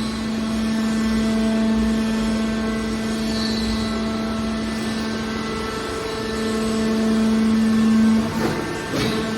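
Hydraulic power unit of a car body baler running with a steady hum, louder in two stretches. Near the end the hum drops away and a short metallic clank and squeal follow.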